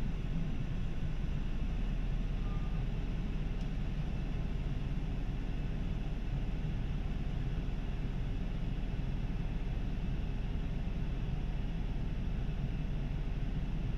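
Isuzu 2DG-LV290N3 (Erga) city bus's diesel engine running steadily, heard from inside the passenger cabin: an even low rumble with a faint steady hum over it.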